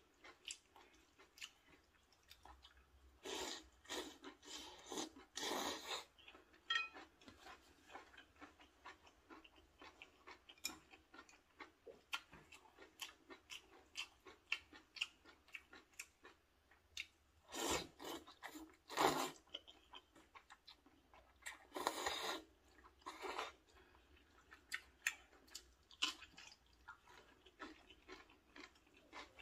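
Close-up mouth sounds of eating rosé maratang noodle soup: wet chewing clicks throughout, with a few louder, longer stretches of slurping noodles about four seconds in, around eighteen seconds and around twenty-two seconds.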